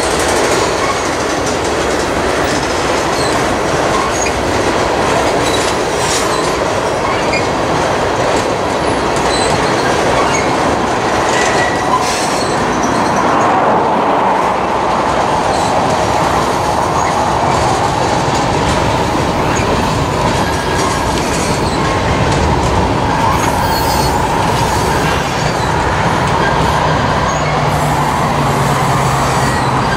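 Tank cars and covered hoppers of a manifest freight train rolling past at steady speed, their steel wheels rumbling and clacking on the rails.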